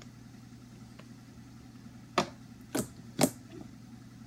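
Three sharp plastic clicks a little over two seconds in, about half a second apart, as an Elmer's clear glue bottle is handled and opened, over a low steady hum.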